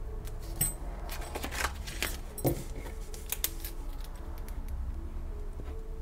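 Paper banknotes being handled and counted: a run of crisp rustles and snaps in the first few seconds, then fewer and quieter paper sounds as a pen works on a paper tracker.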